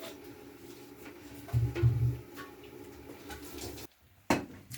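Light kitchen handling sounds: scattered soft clicks and clatter, with one heavier low knock about a second and a half in. Near the end the sound drops out briefly, then starts again abruptly.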